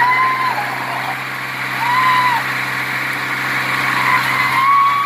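Sonalika tractor's diesel engine idling steadily, while people call out a few drawn-out shouts over it.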